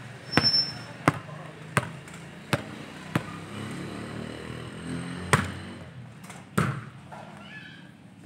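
Football being kicked: a series of sharp, separate thuds of the ball, about one every half second to second, over a low murmur of distant voices.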